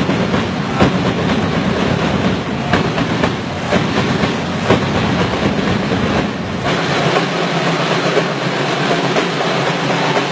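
A group chanting together in a battle chant, with a drum beating through it.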